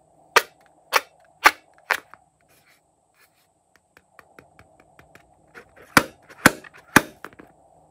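Fingernails tapping on a taut, filled rubber balloon: four sharp taps about half a second apart, lighter clicking, then three more sharp taps near the end.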